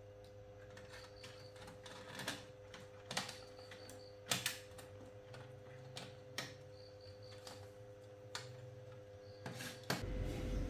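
Scattered sharp clicks and taps, the handling of parts and tools during electronics repair, over a steady electrical hum. Near the end a much louder low noise starts.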